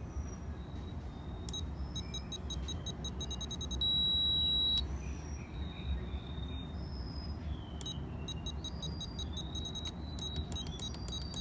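Futaba 14SG radio transmitter beeping as its T3 throttle trim switch is stepped: two quick runs of short, evenly spaced beeps, one per trim step, with one louder long beep of about a second between them.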